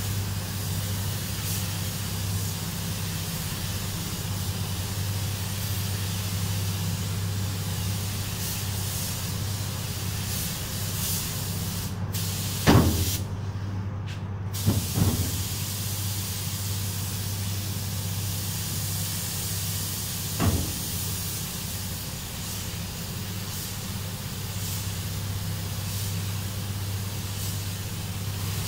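Air-fed gravity-cup spray gun hissing as it sprays metallic paint onto a car, over the steady hum of the paint booth's fans. The hiss cuts out for about two seconds near the middle, with a few knocks around the gap and one more later.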